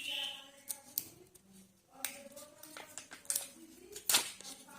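Hands handling chocolate egg wrappers and plastic toy capsules, a run of sharp crinkles, clicks and snaps.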